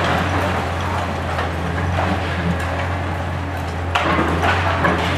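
Hitachi ZX 870-3 high-reach demolition excavator's diesel engine running with a steady low drone, under irregular knocks and crackles of concrete breaking and debris falling as the attachment works the tower block, with a sharper crack about four seconds in.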